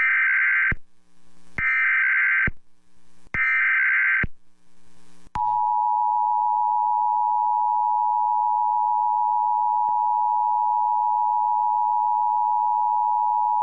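Emergency Alert System signal announcing a tornado warning: three short bursts of the digital header data, each under a second, then the two-tone attention signal, a steady dual tone held for about eight seconds that cuts off abruptly.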